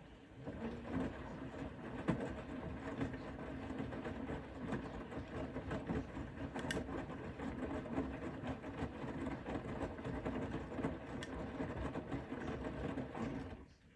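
Bosch Serie 4 front-loading washing machine's motor turning the drum during the wash phase, with a steady hum and the knocking of laundry tumbling. It starts about half a second in and stops suddenly near the end, one of the machine's timed drum rotations.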